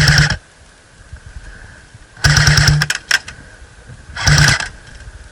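Airsoft electric gun firing short full-auto bursts: three bursts with a motor-like buzz, the middle one the longest, followed by a few sharp clicks.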